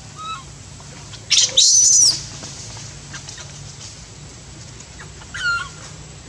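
Infant macaque giving distress calls, left alone without its mother: a short cry just after the start, a loud high-pitched wail about a second and a half in, and another shorter cry about five seconds in.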